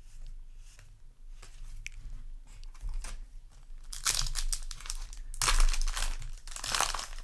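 Foil booster pack wrapper crinkling and tearing in several loud bursts, starting about four seconds in after a quieter stretch.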